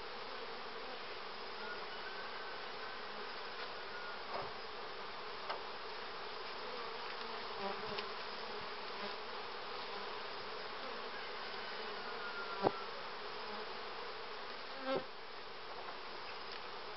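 Steady buzzing of a honeybee colony around an open hive, with a few short knocks, the sharpest about three-quarters of the way through.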